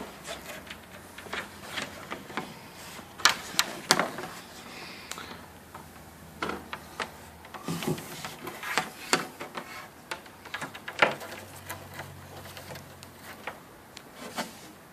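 Irregular clicks, taps and knocks of a power supply cord and plug being handled and fed through a drilled hole in a display case's base, with a few louder knocks scattered through.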